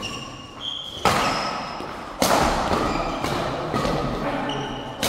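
Badminton rally: two sharp racket-on-shuttlecock hits about a second apart, each echoing in the hall, with shoes squeaking on the court.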